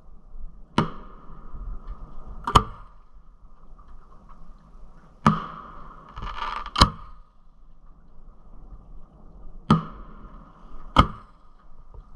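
Aerial fireworks shells going off: six sharp bangs in three pairs, each pair about a second and a half apart, with a brief hiss just before the fourth bang.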